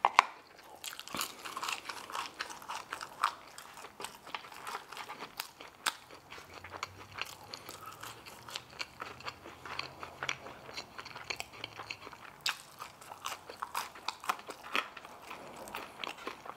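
Close-miked chewing and lip smacking of a man eating a crispy fried chicken tender, with many small wet clicks and crunches. There is one sharp tap just after the start.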